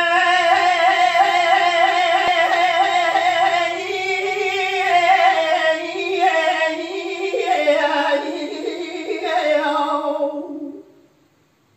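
A man singing dengbêj, the unaccompanied Kurdish sung-narrative style: a single voice holding long notes with quick wavering ornaments, moving lower about seven seconds in and stopping about a second before the end.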